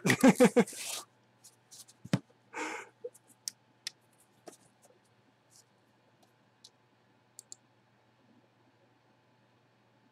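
A short wordless vocal sound, then light clicks and a brief scrape from handling a cardboard box, with sparse faint ticks after it.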